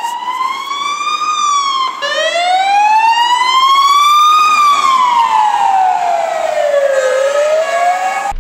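Ambulance siren sounding a slow wail on an emergency run. The pitch rises for about two seconds, drops, then climbs for about two and a half seconds and falls away for about three before rising again near the end.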